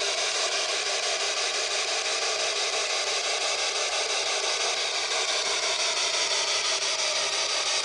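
Steady hiss of static from a ghost-hunting spirit box sweeping radio frequencies, with faint tones drifting underneath.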